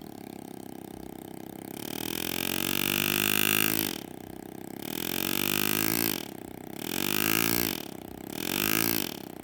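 Pneumatic hand engraver (Lindsay AirGraver) buzzing in four bursts as it cuts shade lines into soft buckle metal. The pitch of its rapid hammering sweeps up and down within each burst. The first burst starts about two seconds in, after a faint steady hum.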